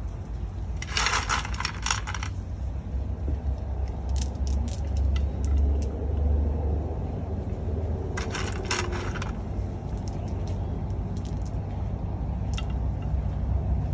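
Small white decorative pebbles clicking against each other and the pot as handfuls are set around the base of a potted ponytail palm, in two busy clusters about a second in and around eight seconds, with single clicks between. A steady low hum runs underneath.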